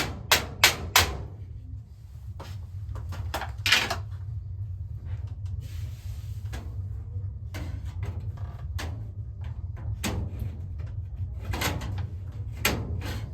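Hammer blows, about three a second, that stop about a second in, followed by scattered knocks and clattering of tools and metal over a steady low hum.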